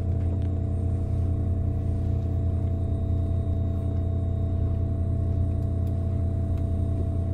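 Steady low hum of a stopped JR Kyushu 787-series express train heard from inside the passenger car, its onboard equipment running while the train stands at a signal.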